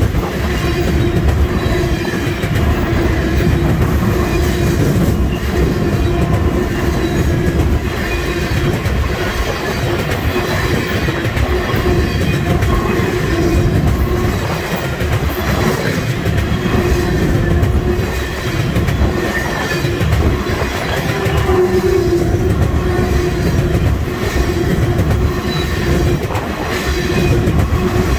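Tank cars of an oil train rolling past close by: the steel wheels and trucks make a steady, loud rumble on the rails, with a steady tone running through it.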